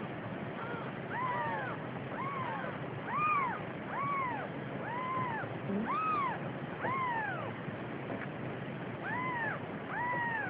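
Days-old Siamese kittens mewing: short, high-pitched calls that rise and fall, about one a second, with a brief pause a little after the middle.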